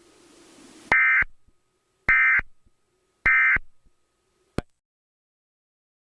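Emergency Alert System end-of-message data header: three short bursts of buzzing digital data tones about a second apart, marking the close of the alert. A hiss rises into the first burst, and a single click follows the third.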